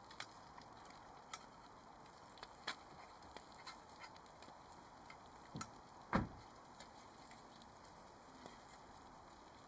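Faint scattered clicks and crackles of campfire cooking on a metal griddle, and one dull thud about six seconds in as a vehicle door is shut.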